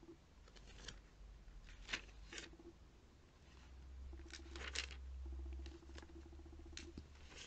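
Glossy catalogue pages flipped by hand: faint, scattered paper flicks and rustles, several in a row.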